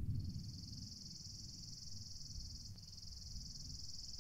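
An insect's steady, high-pitched trill with one brief break a little over halfway through, over a faint low rumble.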